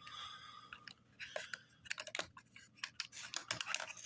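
Crinkling of packaging and irregular small clicks and taps as diecast toy cars are unpacked and handled.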